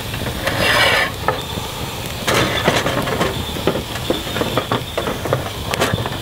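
Wood fire of wet wood crackling and popping with a hiss, as the damp wood steams while it burns.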